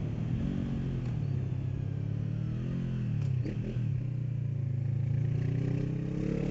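Honda CB500F's parallel-twin engine running under throttle. The note rises and falls, drops sharply about three and a half seconds in, then climbs steadily through the last few seconds as the bike accelerates.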